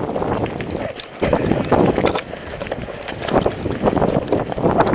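Wind buffeting an action camera's microphone, coming and going in uneven surges, with rustling from the wearer's movement.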